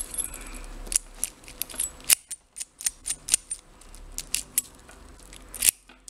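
Metal keys clicking and jangling on a keyring as a key is tried in a euro cylinder lock, a string of sharp irregular clicks. The key does not work in the lock.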